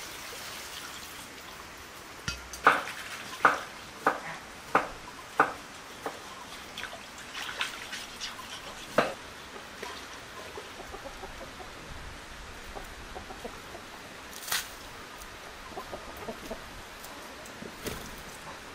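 Sharp knocks, six in quick succession about two-thirds of a second apart, then a few single ones spaced out later, over a faint steady hiss, with fowl clucking in between.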